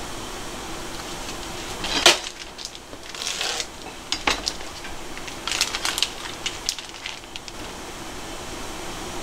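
A vacuum-sealed plastic packet of cod roe being handled and cut open on a plastic cutting board: crinkling and rustling of the plastic, with a loud crackle about two seconds in and a run of short sharp crackles and taps in the second half, over a steady background hum.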